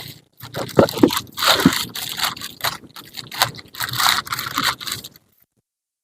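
Handling noise: a run of irregular scrapes, knocks and rustles that stops abruptly about five seconds in.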